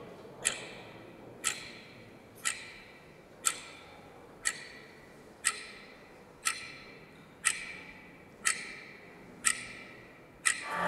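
Clock ticking, one short ringing tick every second, eleven ticks in all.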